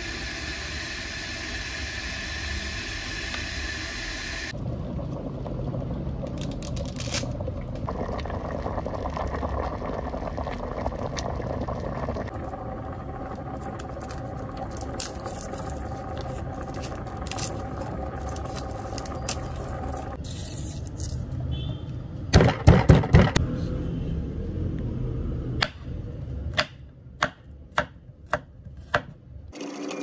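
Water heating in a pot with a steady hiss, then faint clicks and rustles as garlic cloves are peeled. About three-quarters of the way through comes a short burst of loud knocks, and near the end a kitchen knife chops garlic on a wooden cutting board in even strokes about two a second.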